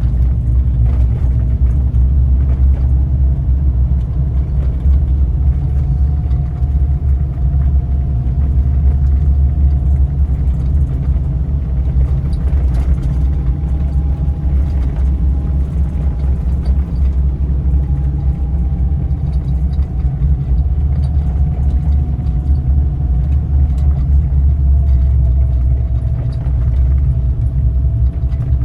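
Suzuki Jimny JA11 on the move: steady, heavy low engine and road rumble with a faint whine that drifts slowly up and down in pitch.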